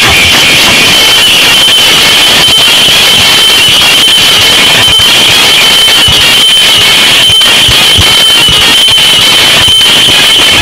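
Large DJ speaker tower playing at extreme volume, so loud that the recording is clipped and distorted into a dense crackling wall of sound. A steady high-pitched tone runs through it, with scattered deep thumps.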